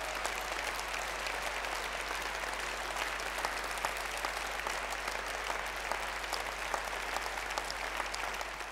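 Large audience applauding steadily, a dense patter of many hands clapping, at the close of a speech.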